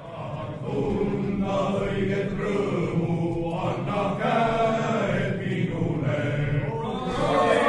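A group of men singing together in unison in slow, drawn-out notes, like a chant. The singing starts about half a second in.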